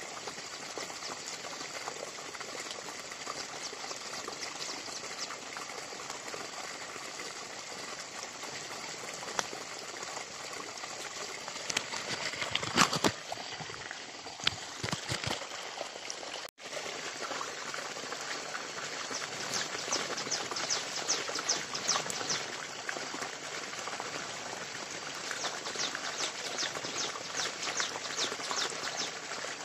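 Forest ambience: a steady hiss with rapid animal chirping in runs near the middle and near the end. Knocks and rustling handling noise come between about 12 and 15 seconds in, followed by a brief dropout.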